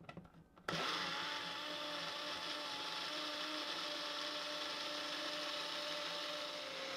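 Personal push-down blender pressed onto its base with a couple of light clicks, then starting abruptly under a second in and running steadily with a whine, grinding rolled oats, eggs and milk into pancake batter.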